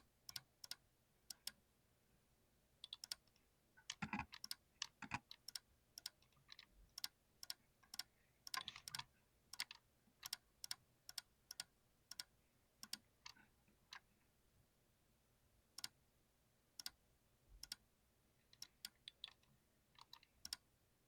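Typing on a mechanical keyboard with TTC clicky switches: irregular crisp key clicks, coming in short quick runs and then fewer, slower presses later on.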